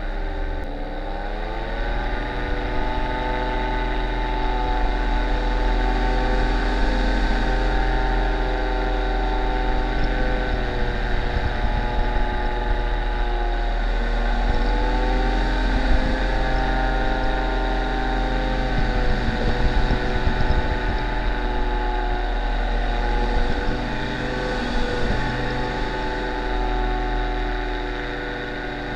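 Paramotor engine and propeller running steadily in flight, a continuous drone. The revs drop briefly and climb back about a second in, and dip slightly again around the middle.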